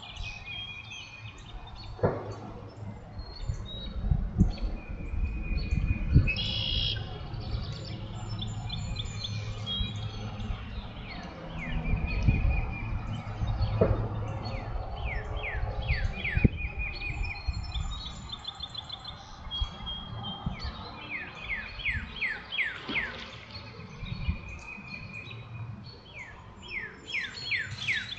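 Several birds singing and calling: clear whistled notes, buzzy trills, and runs of quick falling notes, over a steady low rumble.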